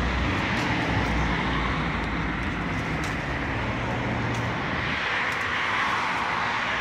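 Road traffic passing on a nearby street: a steady hiss of tyres and engines, with a low engine rumble that fades about a second in.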